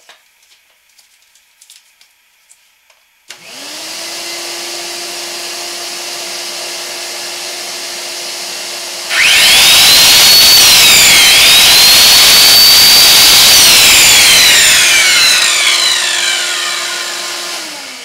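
A 12-amp shop vac switches on about three seconds in, its motor spinning up to a steady whine. About six seconds later a 13-amp circular saw starts and runs free, loudest of all, its whine rising high, dipping once and then winding down. Both run together off the inverter without it shutting down, and the shop vac is switched off near the end.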